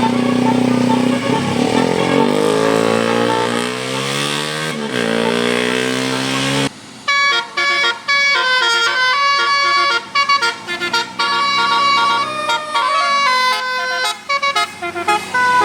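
A bus engine pulls with rising pitch, dropping once about five seconds in as it shifts gear and rising again. About seven seconds in a Basuri 'telolet' multi-tone bus horn breaks in, playing a quick tune of stepped notes with short pauses between them.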